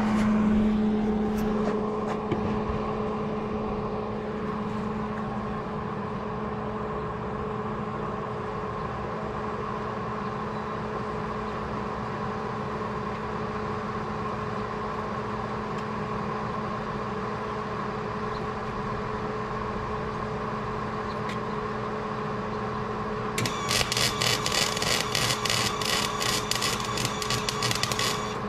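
MIG welder arc crackling for about five seconds, starting some 23 seconds in, as rebar is tack-welded onto steel U-channel. A steady mechanical hum runs under it throughout.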